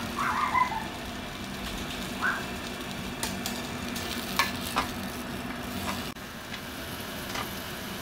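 Frozen sliced pork belly and sausages sizzling on a hot grill plate, with a few sharp clicks of metal tongs against the meat and plate. A faint steady low hum under the sizzle stops about six seconds in.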